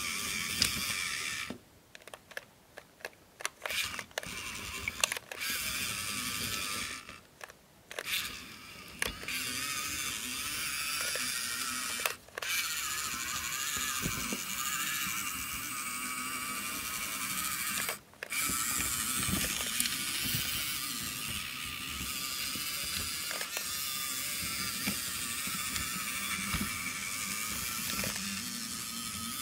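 Small electric gear motor and gearbox of a miniature tracked tractor whirring steadily as it crawls over toy bricks and wooden sticks, with scattered clicks and clatter from the tracks and the bricks. The whir cuts out briefly several times.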